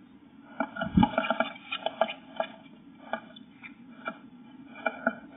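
Blue tit moving about inside a wooden nest box: a run of sharp taps and scratches on the bare wooden floor and walls, with a heavier thump about a second in.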